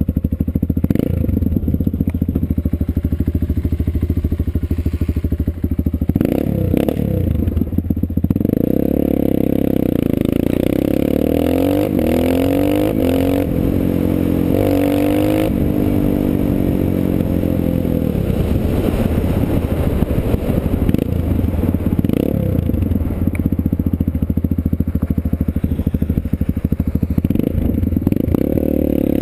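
Dirt bike engine running under way, with several rising revs as it accelerates through the gears about twelve to sixteen seconds in, then settling to a steadier pitch.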